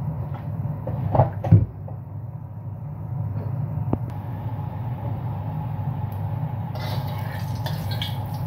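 Steady hum of a kitchen range hood fan over a gas hob, with two knocks about a second in and a single sharp click around four seconds in. Near the end a light crackling hiss starts as oil heats in the wok over the lit burner.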